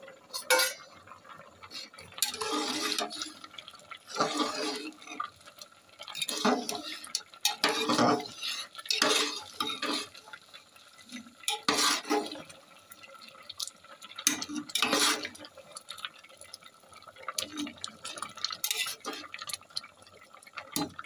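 Metal spoon stirring rice and gourd leaves in boiling water in an aluminium pot: the liquid sloshes and the spoon scrapes against the pot in uneven strokes every one to two seconds.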